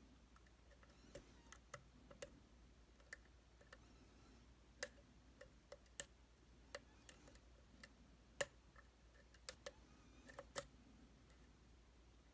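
Faint, irregular clicks of a pick working the pins of a Titan T250 dimple lock under tension, a few sharper clicks standing out among the light ticks.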